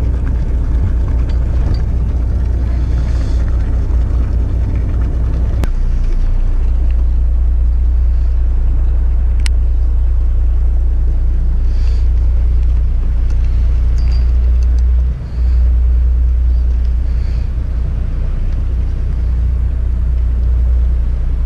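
Fishing boat's engine running, a steady low rumble that dips briefly about fifteen seconds in.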